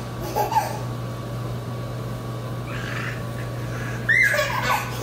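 A baby giggles briefly near the start, and about four seconds in comes a loud high squeal that slides down in pitch, over a steady low hum.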